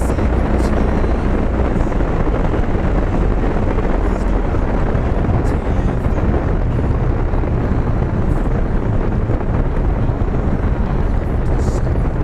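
Cessna 310's twin piston engines running steadily, heard from inside the cockpit, during the landing rollout on the runway.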